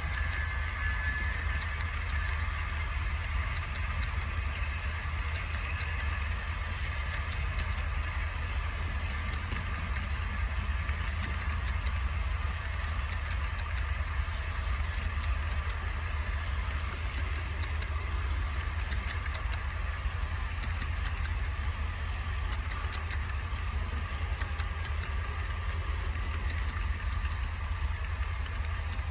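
Model train running on a layout: a steady low hum and whine with frequent light clicks.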